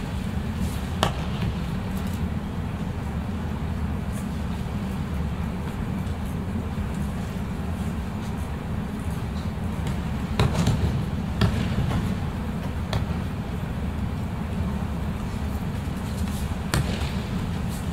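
Steady low rumble of a large hall, broken by a few sharp slaps and thumps of aikido practitioners' bodies and hands striking tatami mats as the uke is thrown and pinned, spaced irregularly with a cluster of them in the second half.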